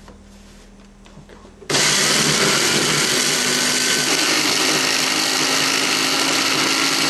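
Blender motor switching on abruptly about two seconds in and running loud and steady at high speed, a noisy whir with a faint hum beneath. Before it there are only faint clicks as the jar and lid are handled.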